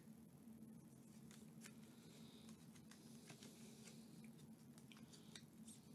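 Near silence: a few faint clicks and rustles of Topps Chrome baseball cards being handled, over a low steady hum.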